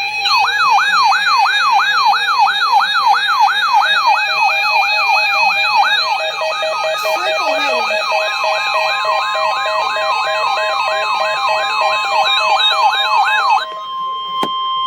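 Electronic alert siren yelping: a fast up-and-down sweep about two and a half times a second, over steady tones, sounding as part of an Emergency Alert System tornado alert. Near the end it cuts off suddenly and a single steady high tone takes over.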